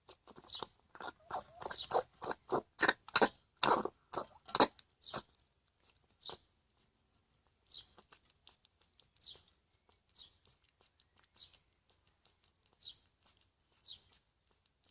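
Hedgehog coughing after choking: a quick run of sharp coughs, two or three a second, for about five seconds and one more a second later, then fainter, hissy puffs of breath about once a second.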